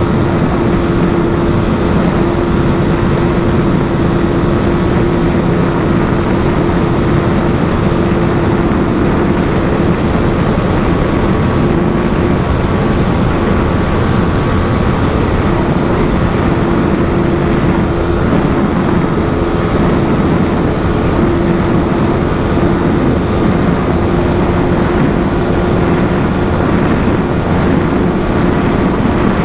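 Modified Yamaha R15 V3's 155 cc single-cylinder engine held at high revs near top speed, a steady unbroken drone with heavy wind noise rushing over the microphone.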